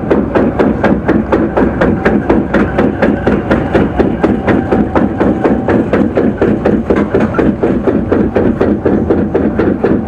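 Log flume lift clacking under the boat as it is hauled up the lift hill: a fast, even run of sharp knocks, several a second, over a steady low rumble.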